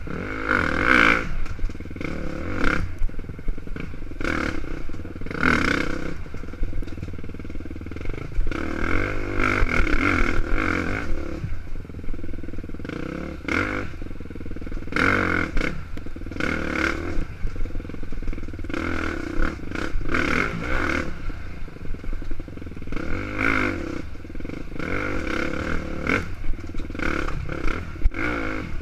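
KTM dirt bike engine, the throttle opening and closing every second or two as the bike is ridden through tight woods singletrack, with knocks from the bike over rough ground.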